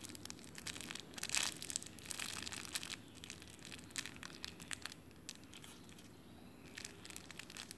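Clear plastic packaging crinkling and crackling as a foam squishy inside it is squeezed in the hand. The crackles are densest over the first few seconds, thin out, then pick up again near the end.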